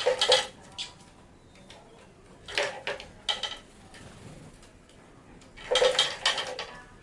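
A sparrow scuffling on and around a small Lego-brick cart: three short bursts of clattering and wing flaps, near the start, around the middle and near the end.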